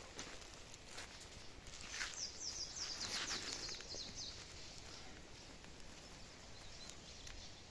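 Footsteps rustling through fallen leaf litter on a forest floor. About two seconds in, a bird gives a quick run of high, falling notes lasting about two seconds.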